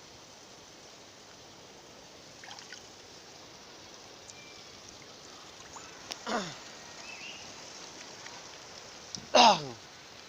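Steady wash of sea water trickling among shore rocks, with two short voiced sounds that fall sharply in pitch, the second, near the end, loud.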